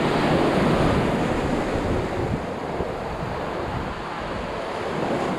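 Ocean surf breaking and washing up the beach, with wind buffeting the microphone. It is loudest in the first second or two as a wave washes in, then settles to a steady wash.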